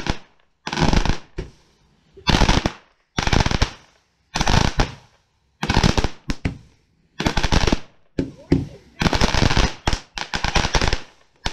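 Consumer ground fireworks going off in a run of crackling bursts. Each burst is about half a second of rapid dense pops, and they come roughly once a second, about a dozen in all.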